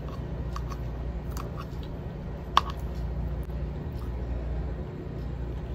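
Small clicks and taps of a utensil in a food bowl while eating, with one sharper click about two and a half seconds in, over a steady low hum.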